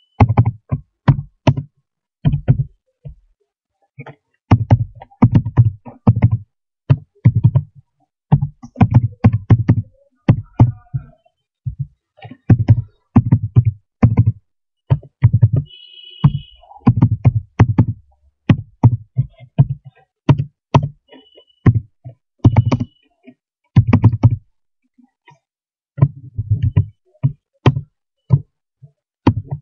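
Typing on a computer keyboard: loud, quick bursts of keystrokes separated by short pauses.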